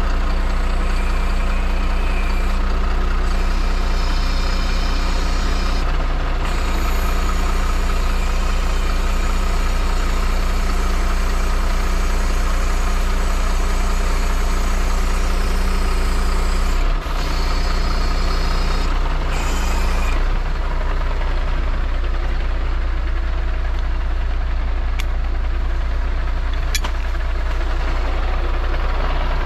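MAN truck's diesel engine running steadily while it powers a Hiab 102 loader crane during pallet unloading. The pitch of the hum shifts a few times, about six, seventeen and twenty seconds in, with a brief dip near seventeen seconds.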